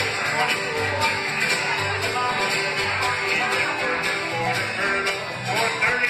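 A small bluegrass band playing live: acoustic guitar strumming under picked mandolin and banjo, with a steady beat.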